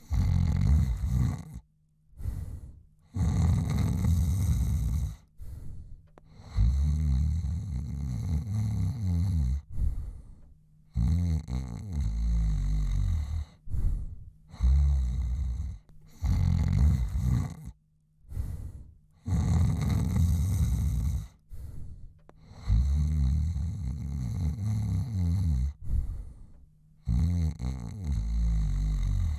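A man snoring in deep sleep: a string of low, rattling snores, one with each breath every two to three seconds, with short quiet gaps between them.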